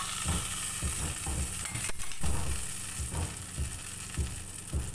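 Shawarma bread sizzling as it cooks in a frying pan, a steady hiss, with a series of soft low knocks.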